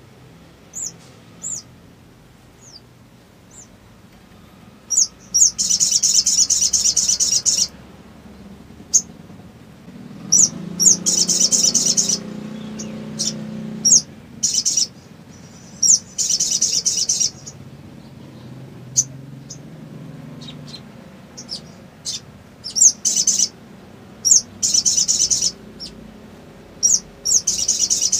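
Caged male sunbird singing: loud, fast, high-pitched chattering trills in bursts of one to three seconds, about five times, with short sharp chirps scattered between them.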